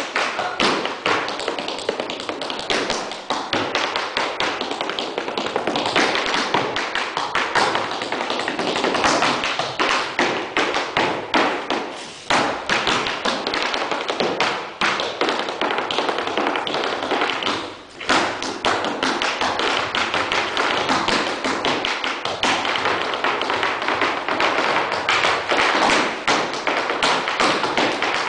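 Tap shoes striking a wooden floor in a fast, dense stream of taps and heavier stomps, an improvised tap dance solo. The rhythm breaks off briefly about 12 seconds in and again about 18 seconds in.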